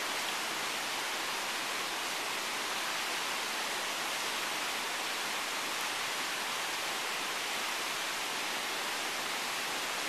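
Steady, even rushing noise with no change and no distinct events.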